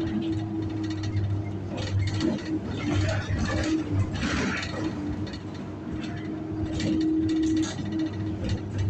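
Inside a moving city bus: engine hum with a steady whining tone that keeps cutting out and returning, over loose rattling. The whine is the annoying noise the bus makes.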